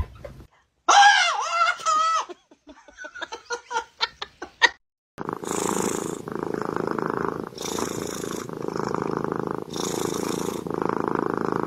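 A kitten purring in steady, even cycles of about a second each, one per breath, starting about five seconds in. Before it come a few seconds of a voice and short bursts of laughter.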